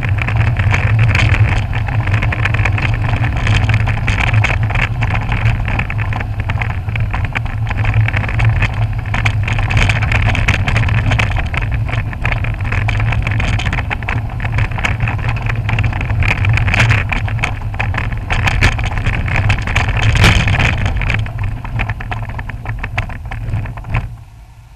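Lancia Stratos driven on a rough forest road, heard from inside the cabin: a steady engine drone under loud road noise, with constant clattering and knocking. The knocking is the right rear shock absorber's cartridge, loose in its case, hitting the bottom of the case at every bump. The noise dies away near the end.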